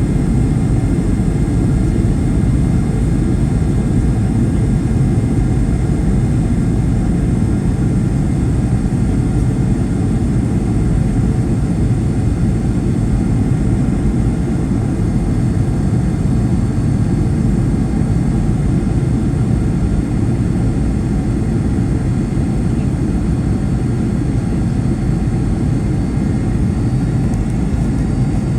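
Steady cabin noise inside a Boeing 757-200 in flight: an even, low rumble of airflow and engines with faint steady high whines above it.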